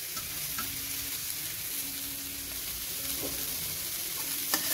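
Chopped cabbage, carrot and beans frying in oil in a steel kadai, sizzling steadily, with one sharp click near the end.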